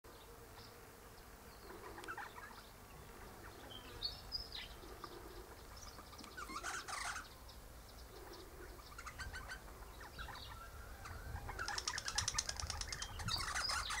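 Eastern rosella parrot chattering: scattered short chirps and whistles, then a fast run of rapidly repeated chattering notes over the last two to three seconds, the loudest part.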